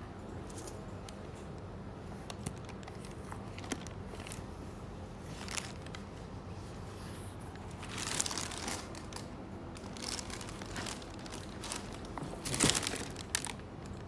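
Packaging being unwrapped and handled during an unboxing: intermittent crinkling and rustling, louder about eight seconds in and loudest about twelve and a half seconds in.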